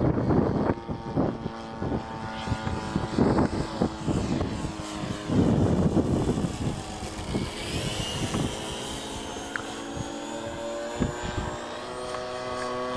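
Engine of a Thunder Tiger radio-controlled model warbird, running steadily as the plane flies overhead. Gusts of wind hit the microphone several times in the first half.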